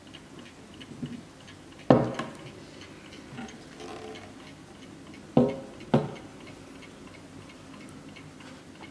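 Vintage 1962 Hermle mantel clock ticking steadily. Three louder knocks ring briefly as the clock is handled, one about two seconds in and two close together a little past the middle.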